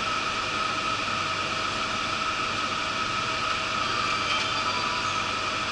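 Yurikamome rubber-tyred automated guideway train running at steady speed, heard from inside the front of the car: an even rush of tyre and running noise with a faint constant whine.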